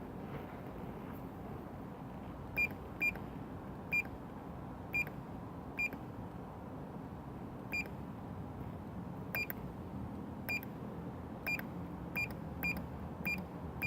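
Short, high single-pitched beeps from an MX-5 Tech handheld diagnostic tool as its buttons are pressed to scroll through the testing modes. There are about fifteen beeps at uneven intervals, starting a couple of seconds in, over a steady low background hum.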